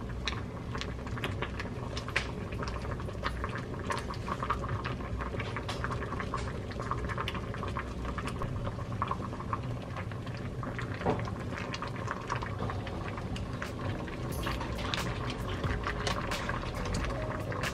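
Pot of doenjang jjigae (Korean soybean-paste stew) at a rolling boil, a steady stream of small bubbles popping and bursting.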